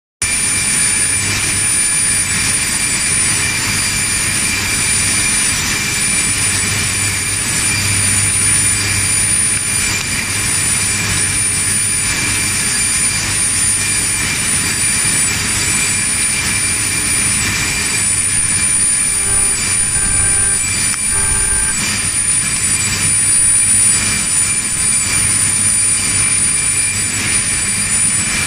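Steady factory machinery noise: a constant roar with a low hum and steady high-pitched tones running through it. A few short pitched tones sound about two-thirds of the way through.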